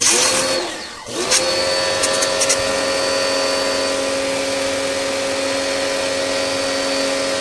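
Pressure washer spinning up as the trigger is pulled, dropping out briefly just before a second in, then starting again and running steadily: a constant motor hum under the hiss of the water jet spraying an air-conditioner evaporator coil.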